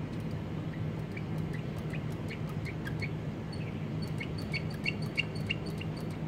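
A small bird chirping in a quick, regular series, about three short high chirps a second, louder toward the end, over a steady low background hum.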